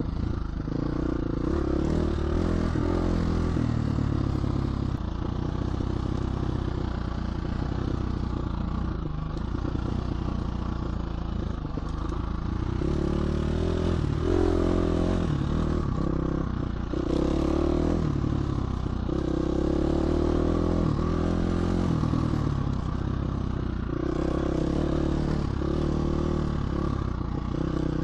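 GasGas 350 four-stroke single-cylinder dirt bike engine under way, its note rising and falling every couple of seconds as the throttle is opened and rolled off.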